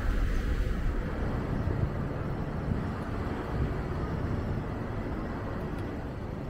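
Steady low rumble of vehicle traffic and road noise.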